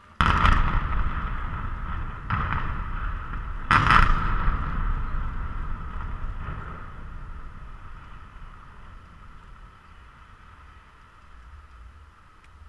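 Explosive demolition charges going off at the cooling towers in a sudden loud blast, with a second blast about two seconds in and the loudest about four seconds in, followed by a long low rumble of the concrete towers collapsing that fades away over several seconds. A steady thin whine runs underneath.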